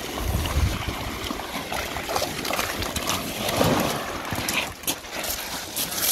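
Splashing and shallow surf washing over shingle as a hooked smoothhound shark is brought out of the water onto the beach, with a few sharp clicks in the second half.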